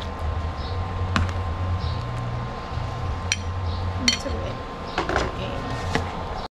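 Cooking utensils and dishes clinking: several sharp knocks, one with a short metallic ring about four seconds in, over a steady low rumble.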